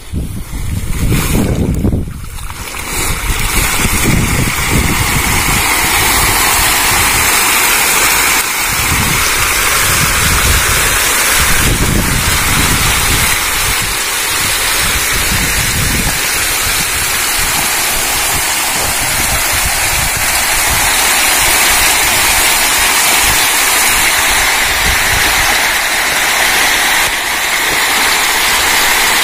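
Hundreds of hybrid magur catfish thrashing and splashing at a pond's surface in a feeding frenzy. The splashing is a dense, continuous churning that builds over the first few seconds and then stays steady.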